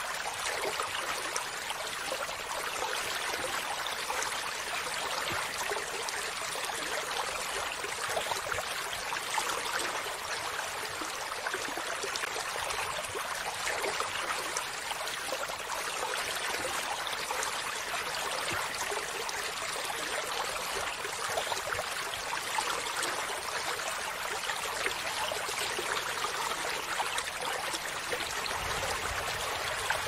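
Shallow stream flowing over rocks, a steady babble and trickle of water that holds the same level throughout.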